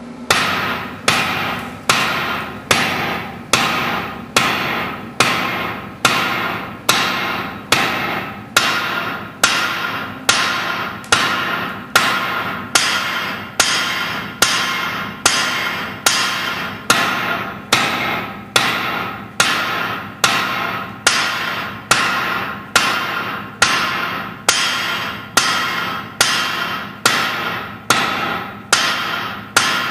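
Hand hammer striking hot steel on a Hofi anvil in a steady rhythm of about one blow a second, each blow ringing, as a bar is offset over the anvil's edge.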